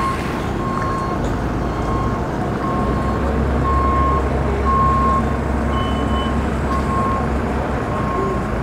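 A reversing alarm beeping about once a second on one steady tone, over a steady low engine rumble at the boat ramp.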